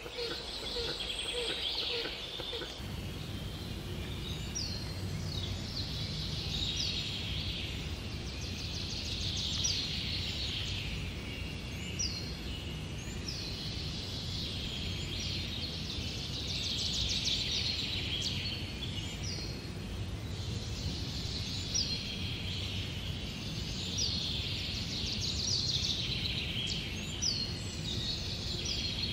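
Forest songbirds calling over and over, short high notes that each drop quickly in pitch, over a steady low rumble of background noise that comes in about three seconds in.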